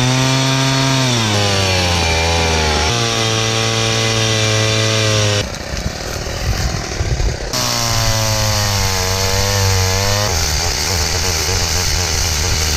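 Stihl MS 170 two-stroke chainsaw running at high revs and cutting through a dead, dry tree trunk, the engine note sagging as the chain bites into the wood and changing abruptly a few times.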